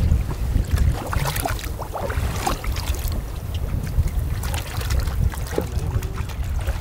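Wind rumbling on the microphone aboard a small open boat on choppy water, with scattered splashes and knocks against the hull.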